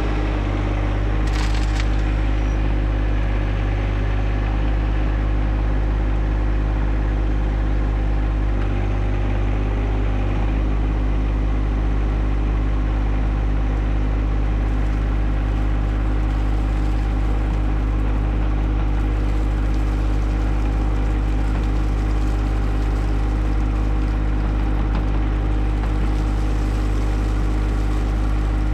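John Deere 1025R subcompact tractor's three-cylinder diesel engine running steadily at a constant speed.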